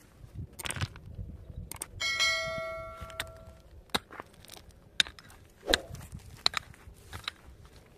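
Knocks and scrapes of a hand tool working a planting pit in stony soil. About two seconds in, one clear metallic, bell-like ring fades out over about a second and a half.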